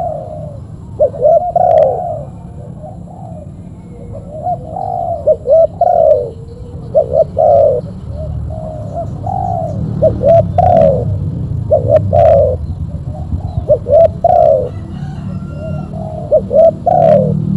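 Spotted doves (tekukur) cooing in repeated, rhythmic phrases of several coos, about one every second or so. A few sharp clicks come in the second half, over a low rumble.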